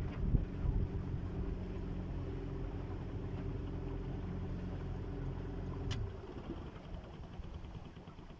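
Boat motor running steadily at low speed, then shut off about six seconds in, with a sharp click just as it stops.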